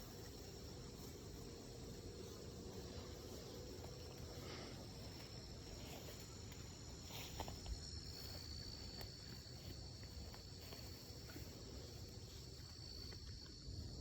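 Insects trilling steadily at a high pitch, with a faint low hum fading out in the first few seconds and a couple of light knocks about seven seconds in.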